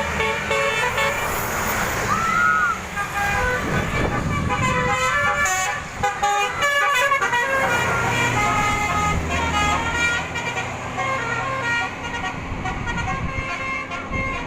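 Telolet horn, the multi-tone musical horn fitted to Indonesian buses, playing quick runs of short stepping notes over and over, with a vehicle engine running underneath.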